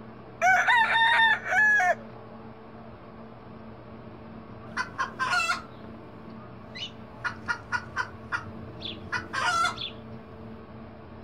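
A rooster crows once about half a second in, then chickens cluck in short, quick calls through the second half, over a steady low hum.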